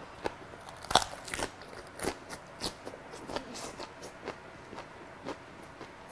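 Close-up chewing of a crisp raw napa cabbage wrap filled with beef jeon: irregular wet crunches, the loudest about a second in.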